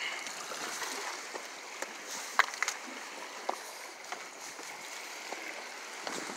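Seawater washing and sloshing against the rocks of a breakwater, a steady hiss, with a few short light clicks around the middle.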